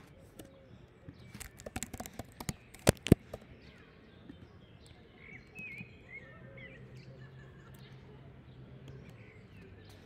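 Computer keyboard keys clicking in a quick run about a second and a half in, ending in two loud strikes, then faint bird chirps in the background.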